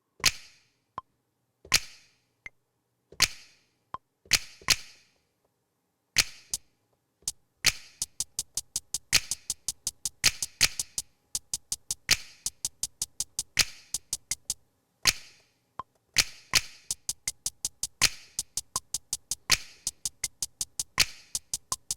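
Drum-machine beat played from resampled Akai MPC drum samples in Maschine: separate sharp drum hits every second or so, joined about a third of the way in by a steady run of quick ticks, about four a second.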